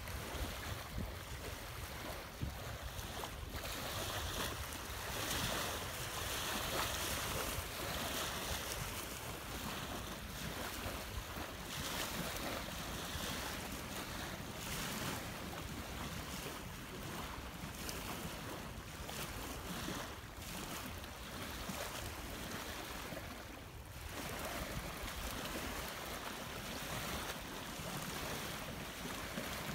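Small wind-driven waves washing onto a gravel lakeshore, with steady wind and gusts buffeting the microphone.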